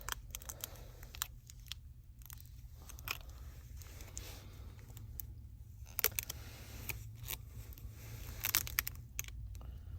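Scattered small clicks and crinkling, tearing crackles as the phone's replacement back glass and its adhesive film are handled and peeled, over a steady low hum. The clicks bunch up near the middle and again near the end.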